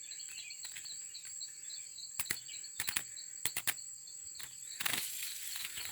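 Insect chorus: a steady high-pitched buzz with a faster pulsing chirp beneath it. Scattered sharp clicks come through it, and a short rustle comes near the end.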